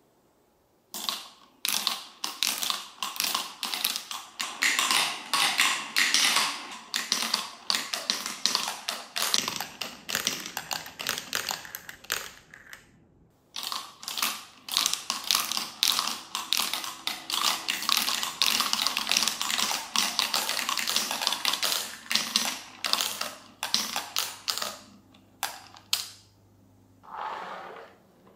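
Small marbles rolling and clattering down a plastic toy marble run, a quick dense rattle of clicks as they hit the track pieces and paddle wheel. The rattle stops briefly about halfway, then starts again as another marble is dropped in.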